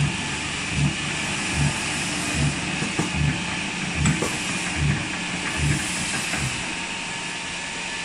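Stainless steel flanging and crimping machine running, spinning a stainless steel cylinder shell while its rollers form the rim. A steady hissing machine noise with a low thump about every 0.8 seconds; the thumps stop about six and a half seconds in.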